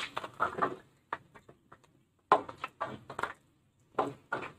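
Short, irregular bursts of a perforated steel spoon stirring chana dal inside a wire-mesh strainer held in hot frying oil, scraping and tapping against the mesh while the frying dal crackles.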